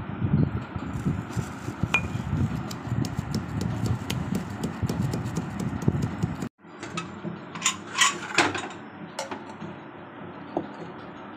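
Steel pestle pounding cardamom pods and nuts on a plastic sheet over a hard floor: rapid, irregular dull thumps. After a brief break about six and a half seconds in, the sound is quieter, with a few sharp clicks and crackles.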